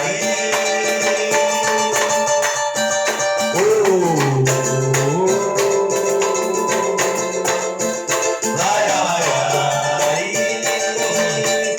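Pagode band playing an instrumental passage: a steady percussion groove with shaker and jingle sounds runs under held chords. Twice a melodic line slides down and back up in pitch, once about four seconds in and again near nine seconds.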